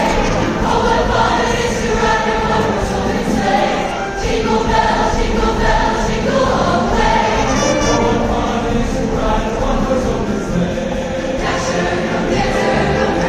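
Combined choirs singing with orchestra and wind ensemble accompaniment, a full sustained ensemble sound.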